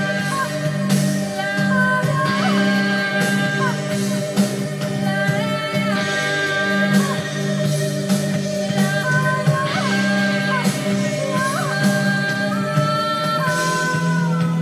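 A song playing: a singing voice over guitar-led accompaniment.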